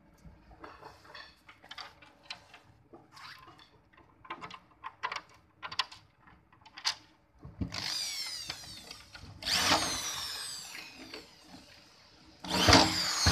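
Light clicks and knocks of clear plastic chair parts and screws being handled, then a corded electric drill running in three bursts, its pitch sliding, driving screws into the clear plastic chiavari chair frame; the last burst is the loudest.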